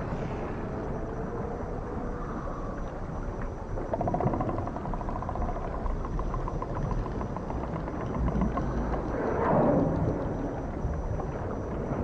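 Cetacean calls recorded underwater over a low rumbling sea background. Drawn-out moans slowly glide in pitch, a rapid buzzing pulsed call runs from about four to seven seconds in, and a louder burst of calls comes near ten seconds.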